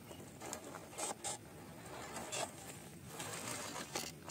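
Small RC truck's tyres crunching and clattering over loose gravel and stones as it drives downhill, with a faint whirr of its drivetrain and a few sharp clicks about a second in, at about two seconds and near the end.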